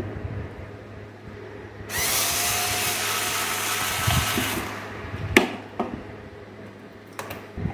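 Black & Decker cordless power screwdriver running steadily for about three seconds, backing out the screws that hold the HID ballast to the headlight housing. A few sharp clicks of plastic parts being handled follow near the end.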